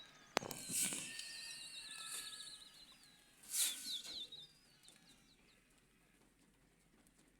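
Small birds chirping and trilling, high warbling calls in two spells, with a sharp click near the start and two brief rushes of noise, the louder a few seconds in.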